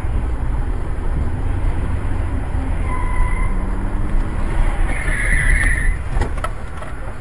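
Steady rumbling car road noise, with a short two-note tone about three seconds in, a harsh noisy screech about five seconds in, and a few sharp knocks just after six seconds, after which the rumble drops.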